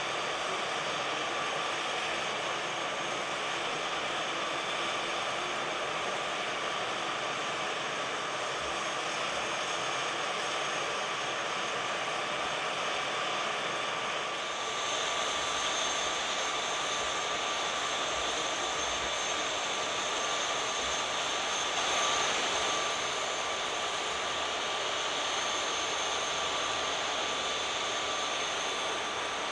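Jet aircraft turbine running steadily at the airport: a constant rushing hiss with a steady high whine. A higher-pitched whine joins about halfway through.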